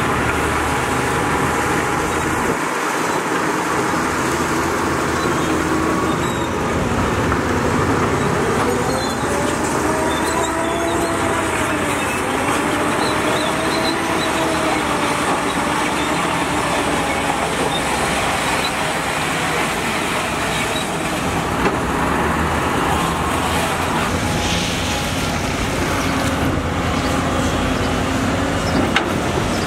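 Heavy diesel machinery running loud and steady, with a whining tone that rises and falls through the middle.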